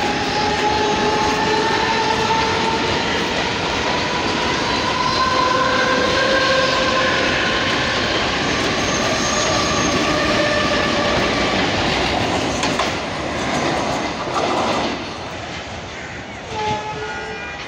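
Mumbai suburban EMU local train pulling out of a platform: wheels running on the rails under a whine from the electric traction motors that rises slowly in pitch as the train gathers speed. Near the end a brief horn-like tone sounds.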